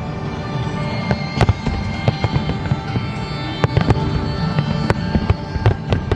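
Fireworks going off in irregular sharp bangs and crackles over a low rumble, with music of held notes playing underneath.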